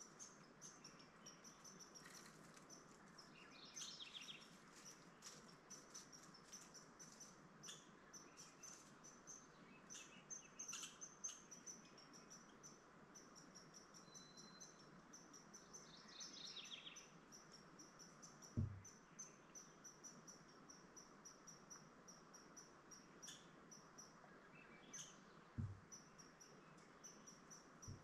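Faint forest ambience: a steady high-pitched chirring trill with scattered bird calls over it, and two dull low thumps in the second half.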